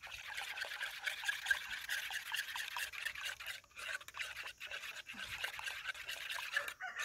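Fingers stirring a thin cassava-flour and water batter in a metal bowl: a continuous run of small splashes and drips.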